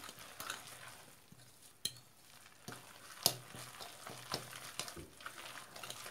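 A utensil stirring a thick, wet vegetable-and-egg mücver batter in a bowl: soft irregular wet mixing noise with scattered clicks against the bowl, the sharpest one about three seconds in.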